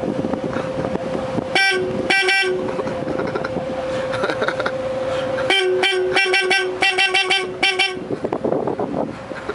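A riverboat's horn sounded in short toots: two brief blasts about a second and a half in, then a quick string of about six short toots a few seconds later, over a steady hum.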